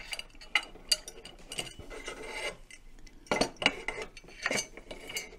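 Metal parts of a solar tracker frame clinking and knocking as they are handled, with a scraping rub about two seconds in as a long bolt is pushed through the shaft and bracket.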